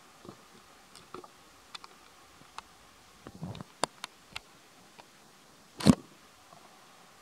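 Scattered soft clicks and rustles of handling as monkeys clamber over a seated person and paw at a bag, with one sharp thump a little before the end.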